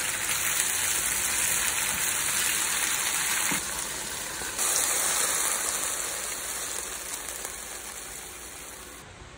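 Chicken leg quarters sizzling in hot oil in a frying pan: a steady hiss that drops briefly about three and a half seconds in, comes back a second later, and fades toward the end.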